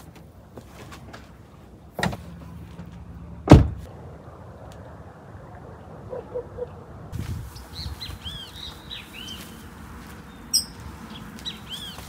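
Two thumps about a second and a half apart, the second much the louder. Then, from about halfway, birds chirping with short repeated calls.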